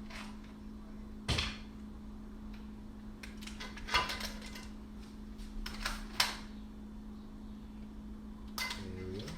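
Kitchen clatter: a handful of separate knocks and clinks of crab shells and utensils against a wok, over a steady low hum.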